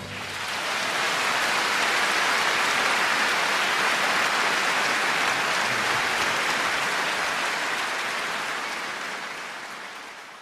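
Large audience applauding at the end of a song, a steady dense clapping that fades out near the end.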